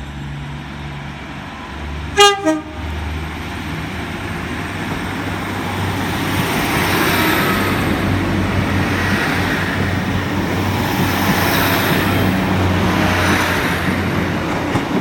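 A train's horn gives one short toot about two seconds in. Then a departing diesel train's engine and wheels build up louder as it pulls away past the platform.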